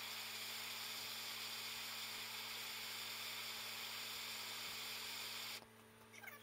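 Steady hiss with a low electrical hum, which cuts off suddenly about five and a half seconds in, leaving faint short squeaks.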